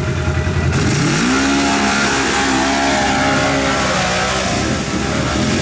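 Polaris RZR side-by-side engine revving hard under load as it climbs a steep dirt hill. Its pitch rises about a second in, holds high, sags briefly near the end and picks up again.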